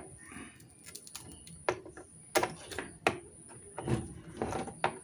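Scattered light clicks and taps at irregular intervals, with a couple of short scrapes near the end, from hand work on a circuit board: a soldering iron and fine copper wire freeing the legs of an SMD IC.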